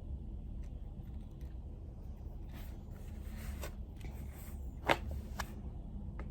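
Desk work at a study table: a short rustle, as of paper or a pen scratching, followed by a few sharp clicks, the loudest about five seconds in, over a low steady rumble.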